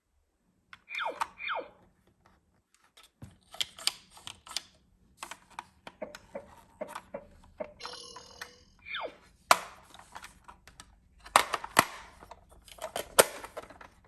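Small plastic toys being handled: irregular light clicks and knocks, with a few sharper ones in the second half.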